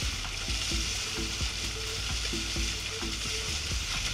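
Water rushing and hissing along the hulls of a Weta trimaran sailing fast, with low wind rumble on the microphone. A faint looped melody plays underneath.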